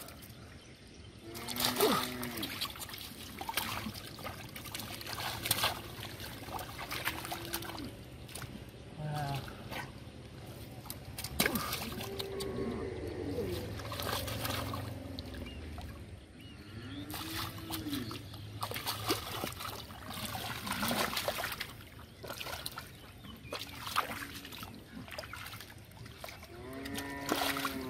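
Hands and a caught catfish splashing in shallow muddy water: irregular splashes, sloshes and trickles. Several short wordless voice sounds come in between.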